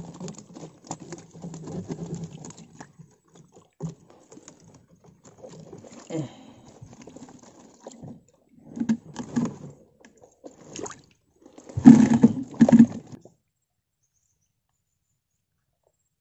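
Water splashing and pattering as a wire-mesh fish trap is handled at the side of a canoe: a crackly patter at first, then several separate splashes, the loudest pair about twelve seconds in, before the sound drops out to silence.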